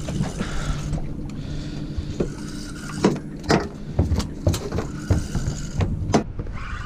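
A landed snapper brought aboard a small boat, then a run of about eight irregular sharp knocks and thumps from about three seconds in, the fish flapping on the boat's floor.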